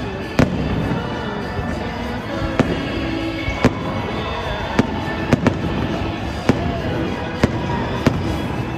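Aerial fireworks going off in a post-game show: about ten sharp bangs, irregularly spaced, over music playing throughout.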